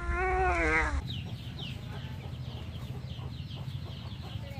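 A tabby kitten's long, wavering distress cry as a dog mouths it, ending about a second in. After that come short, high, falling bird chirps repeating about three times a second.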